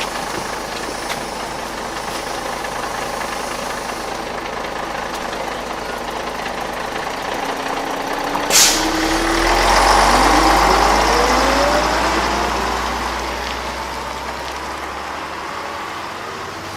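Bus engine idling, then a sharp hiss of air brakes about halfway through, followed by the engine pitch rising steadily as the bus pulls away and gathers speed.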